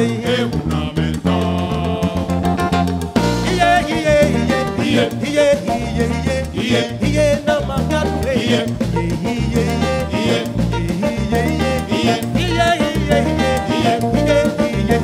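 A live band playing an upbeat Afro-Latin groove on drum kit, electric guitar and bass guitar, with a singing voice over it. A held passage gives way to the full groove about three seconds in.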